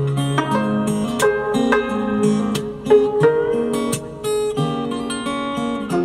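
Gayageum and acoustic guitar playing a duet: a melody of plucked zither notes ringing out over guitar accompaniment.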